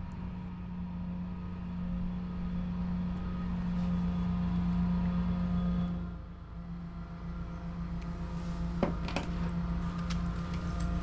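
Power drill with a hole saw running steadily as it cuts a hole for a bulkhead fitting. It eases off briefly about six seconds in, then runs again, with a few sharp clicks near the end.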